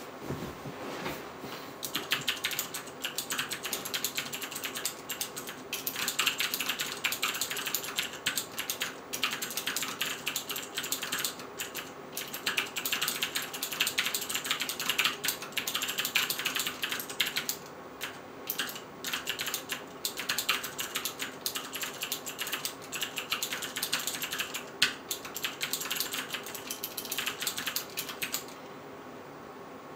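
Ducky DK9008G2 Pro mechanical keyboard with clicky Cherry MX Green switches being typed on in quick, dense runs of clicks. The typing breaks off briefly a few times and stops near the end.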